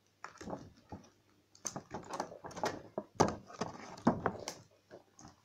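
Hands handling a small plastic toy and its packaging: irregular clicks, taps and rustles, with sharper knocks about three and four seconds in.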